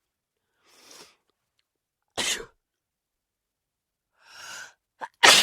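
A woman sneezing twice, each sneeze coming after a short drawn-in breath. The second sneeze, near the end, is the louder.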